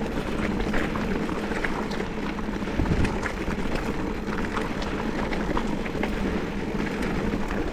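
Mountain bike rolling fast over a rooty dirt trail: steady tyre and wind noise on the bike-mounted microphone, with frequent small clicks and rattles from the bike over the bumps.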